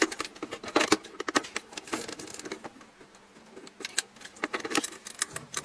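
Irregular light clicks and taps of small parts and a screwdriver being handled while a small motor is fitted into a thermal printer with two screws, busiest near the start and again about four seconds in.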